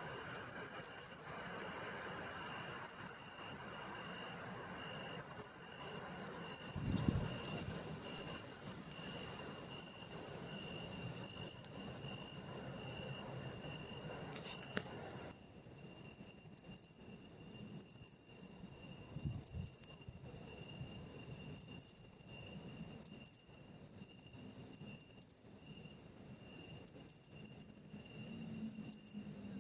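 Matsumushi (pine cricket, Xenogryllus marmoratus) singing its 'chin-chiro-rin' call: short, high, ringing chirps in groups of two or three, repeated every second or two and coming faster around the middle.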